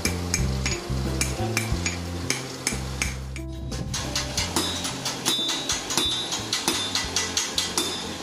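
Background music plays over blows of a hand hammer on a steel anvil until about three and a half seconds in. After the music stops, a steady run of hammer strikes continues, about three a second, each with a high metallic ring.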